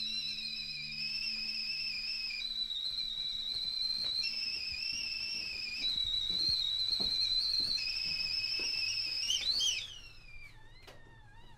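Stovetop whistling kettle at the boil, its whistle flipping between two pitches every second or two. Near the end the pitch wavers up, then slides down as the whistle dies away to a faint tone.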